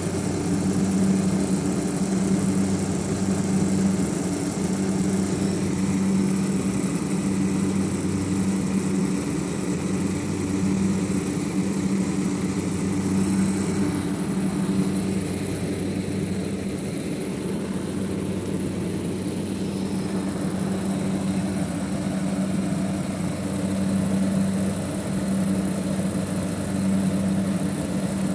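Outdoor condensing unit of a 20-horsepower split air conditioner running on its test run after a compressor replacement: a steady mechanical hum that swells and eases slowly.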